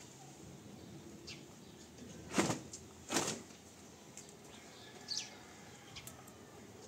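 Wet laundry shaken out by hand: two sharp cloth snaps less than a second apart.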